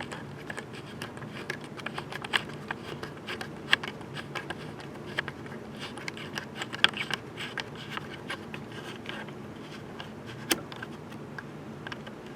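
Irregular sharp clicks and scrapes from a camera being handled and fitted back onto a tripod, over a steady low hum.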